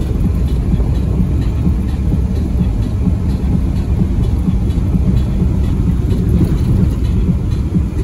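A vehicle driving, giving a steady low road rumble with scattered light clicks and rattles.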